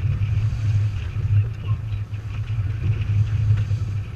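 Strong wind buffeting the deck-mounted camera's microphone as the sailboat beats upwind in an 18–22 knot breeze: a steady low rumble that keeps rising and falling, with a faint hiss of wind and water above it.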